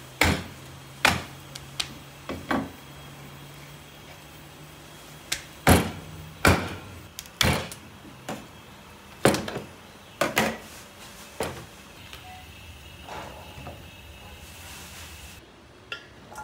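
A meat cleaver chopping through bone-in raw meat onto a plastic cutting board: about a dozen heavy chops at uneven intervals, some in quick pairs.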